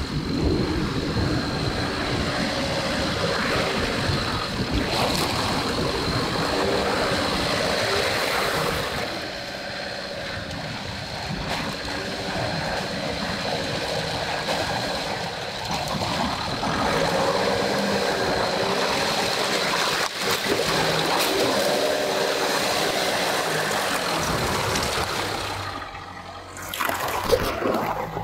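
An off-road vehicle driving through water, with continuous splashing and rushing water over the sound of the engine.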